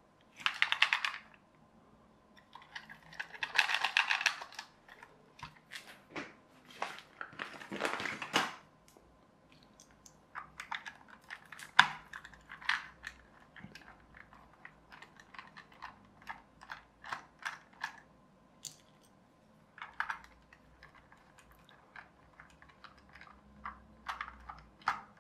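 Small precision screwdriver undoing the screws on the underside of a plastic radio-controlled toy car. A few short scraping, rustling bursts come in the first eight seconds, then a long run of light, irregular clicks and ticks as the tip works in the screw heads and against the plastic body.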